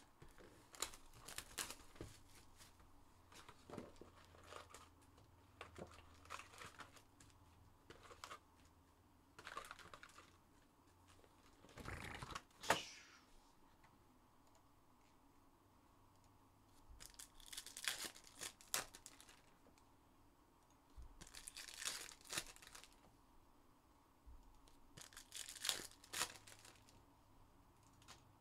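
Trading-card box and pack wrappers being torn open and crinkled in short separate bursts every few seconds, the loudest about halfway through.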